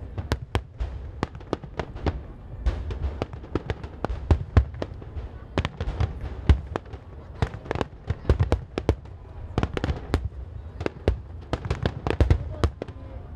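Aerial fireworks bursting in a dense barrage: several sharp bangs a second layered over deep booms and a continuous low rumble.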